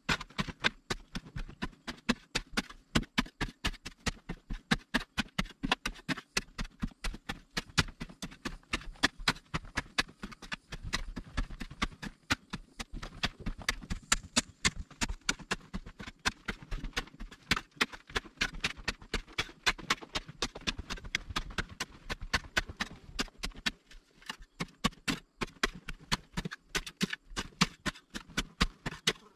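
A pick chopping into a packed earth and stone wall, with repeated sharp strikes several times a second and loosened dirt and pebbles falling.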